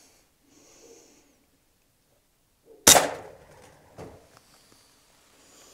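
A single shot from an Air Arms S510 TDR pre-charged air rifle firing a .22 pellet, a sharp crack with its power turned down. A lighter click follows about a second later. Before the shot a pigeon coos faintly.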